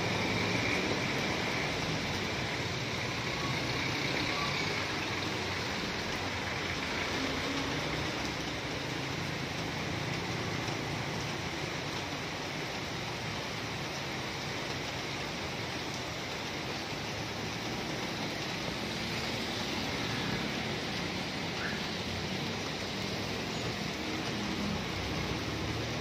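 Heavy rain pouring down steadily on a street, with vehicles driving past on the wet road.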